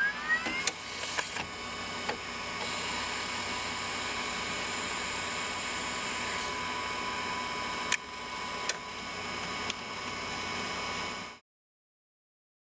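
DWX-52D milling machine's spindle finishing its spin-up with a rising whine, then running at steady speed as a high whine over mechanical hum, with a few light clicks. This is the spindle run-in after the unit is replaced. The sound cuts off suddenly about eleven seconds in.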